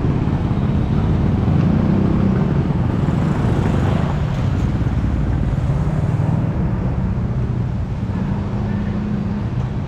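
A vehicle engine running close by with steady street traffic: a continuous low rumble with a hum whose pitch shifts a little now and then.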